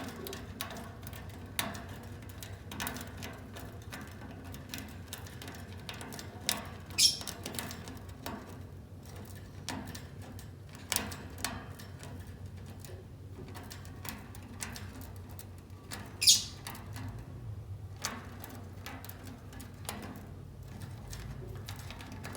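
Lovebirds busy at their nest: many scattered small clicks, taps and scratches, with two short, shrill, high-pitched chirps, one about a third of the way in and one past the middle.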